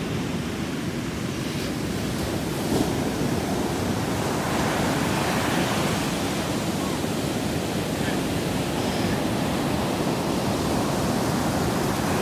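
Surf on a sandy beach: waves breaking and washing up the shore in a steady, continuous rush.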